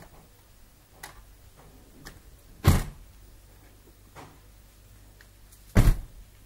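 Handling noise on a handheld camera's microphone: a few faint clicks and two sharp knocks, about three seconds apart.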